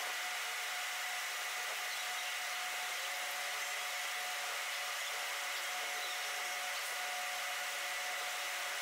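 Steady drone of heavy shop machinery: an even hiss with a few steady whining tones over it, and a second whine joins about three seconds in.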